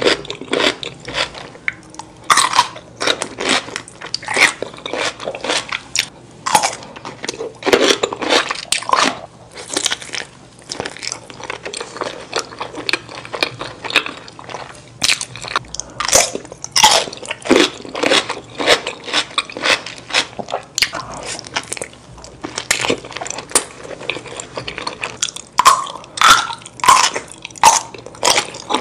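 Close-miked eating: repeated crunchy bites and chewing of pickles and a cheese-covered sausage in a bun, in irregular crunches.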